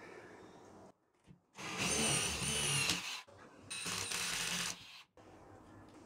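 Cordless drill with a twist bit boring new mounting holes into a stucco wall. Its motor whines through two runs, one of about a second and a half and then a shorter one of about a second.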